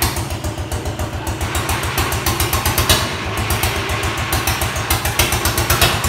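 Single-cylinder diesel engine of a walking tractor running with a rapid, even beat and some sharp ticking, while it blows thick exhaust smoke.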